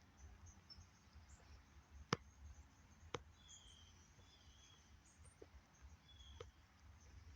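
Near silence with a faint low rumble, broken by two sharp clicks about a second apart, a fainter third click later, and a few faint short high chirps.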